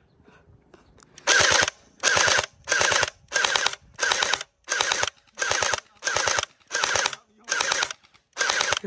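Electric gel blaster firing on full auto in short, evenly spaced bursts, about ten of them, each a quick rattle of shots over the whine of its gearbox motor.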